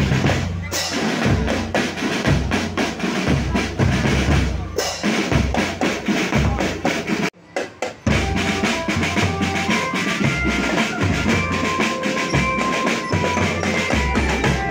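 Loud, drum-heavy dance music with a pounding bass drum played through a carnival sound system. About halfway through it drops out for under a second, then comes back with a held melody over the beat.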